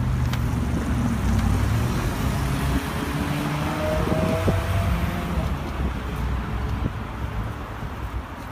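City street traffic noise: a steady rumble of passing cars.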